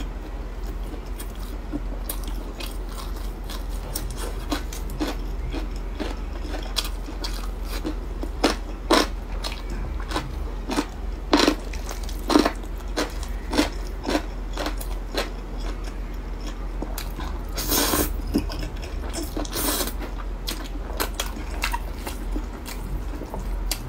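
A person chewing food close to the microphone, with many short wet mouth clicks and smacks. Two longer, hissier mouth noises come about three-quarters of the way through, over a steady low hum.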